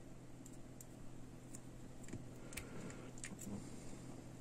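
Faint, scattered small clicks of crocodile clips being handled and clipped onto a cylindrical lithium cell's terminals, over a steady low hum.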